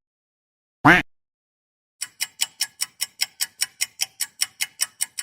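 A single cartoon duck-quack sound effect about a second in. About two seconds in a clock starts ticking quickly and evenly, about five ticks a second. The quack is the louder of the two.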